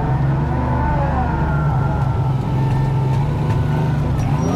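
Kubota R430 wheel loader's diesel engine running steadily, heard from inside the operator's cab. A higher whine wavers in pitch above it and rises near the end.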